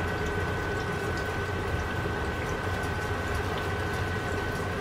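French fries deep-frying in hot oil in a pan: a steady bubbling sizzle with scattered tiny crackles. A steady high tone runs underneath.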